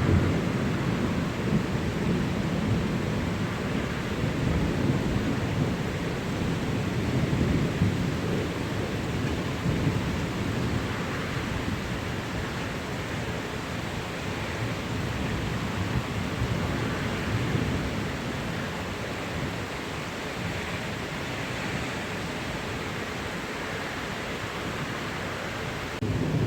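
Steady rain with thunder rumbling low. The rumble is strongest in the first ten seconds or so and slowly eases off.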